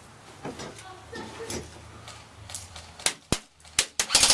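Airsoft guns firing: four sharp single shots starting about three seconds in, then a rapid full-auto burst near the end.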